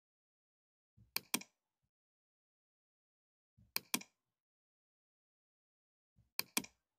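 Computer mouse clicked three times, about two and a half seconds apart, each time a quick pair of sharp clicks.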